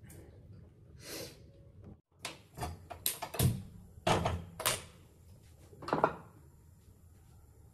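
Kitchen clatter from things being handled at the counter: a run of sharp knocks between about two and five seconds in, then a single sharp knock about six seconds in, the loudest of them.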